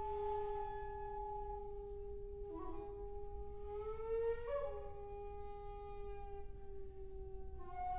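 Two shakuhachi playing a slow duet in long held notes, one high and one low sounding together. The lower flute slides up slightly about four seconds in and drops back, and the upper flute steps down to a lower note near the end.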